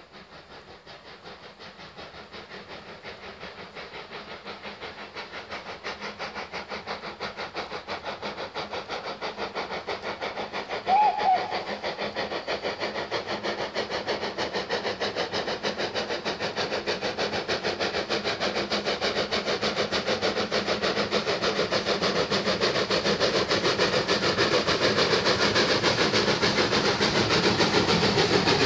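Midland 4F 0-6-0 steam locomotive No 43924 working hard on its approach: its chimney exhaust beats in a rapid, even rhythm that grows steadily louder. A short steam whistle sounds about eleven seconds in.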